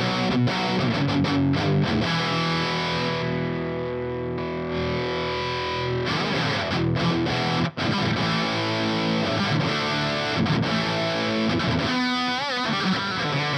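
High-gain distorted electric guitar in standard tuning, played through a modified Marshall JCM 900 SL-X 50-watt head boosted by a Fortin Blade into a Mesa Rectifier 4x12 cab. Choppy riffing, with a chord left ringing for a few seconds early on, a sharp stop just past the middle, and a note shaken with wide vibrato near the end.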